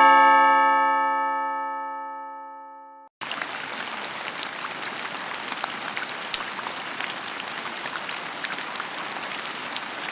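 A struck chime rings out and fades over about three seconds, then heavy rain starts abruptly and falls steadily, a dense hiss of drops.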